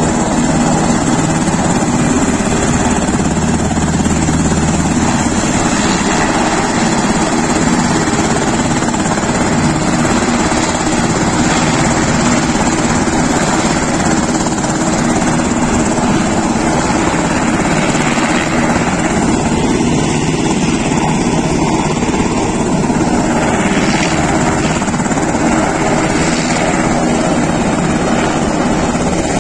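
Aircraft engine running loudly and steadily, with a constant engine hum and no sudden changes.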